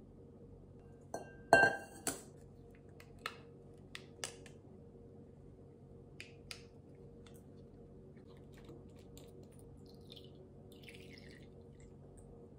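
Kitchen handling sounds on a stone countertop: a sharp glass-and-metal clink with a brief ring about a second and a half in, from the bean jar and tin can, then a few lighter clicks and taps. A faint soft hiss follows near the end, over a low steady hum.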